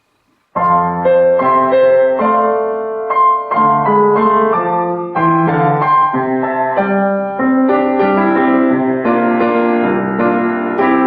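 Solo piano playing a slow theme in sustained chords, starting about half a second in.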